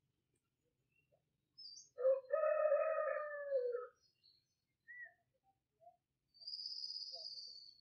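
A rooster crows once, about two seconds in, a single long call that drops off at its end. Small birds chirp around it, and a thin high bird call is held for over a second near the end.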